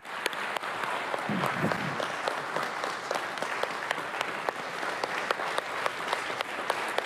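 Large audience applauding steadily, a dense patter of many hands clapping at once.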